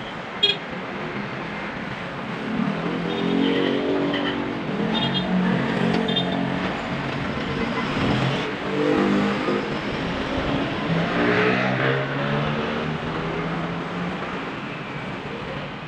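Road traffic passing close by: several vehicle engines, including a jeepney's, rise and fall in pitch as they go past. A single sharp click about half a second in.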